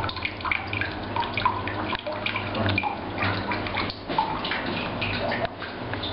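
Water trickling and dripping in a darkroom's film-processing tanks, in many small irregular drops and splashes, over a low steady hum.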